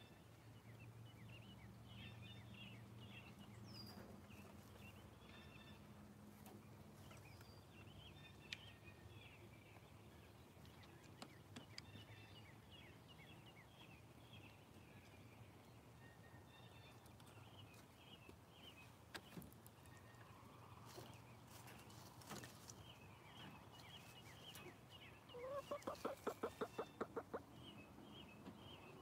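Hens of a small backyard flock, foraging, with faint scattered high chirps throughout. About 26 seconds in one bird gives a quick run of about a dozen clucks, the loudest sound. A faint low hum runs under the first several seconds.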